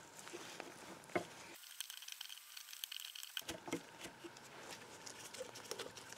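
Faint small metal taps, ticks and light scraping as a pointed tool works at a rusted pin in an antique cast-iron eyelet press. There is one sharper tap about a second in and a few knocks a little past halfway.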